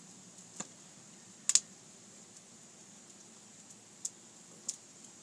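A few scattered sharp clicks or snaps over a quiet background, the loudest a quick double snap about a second and a half in.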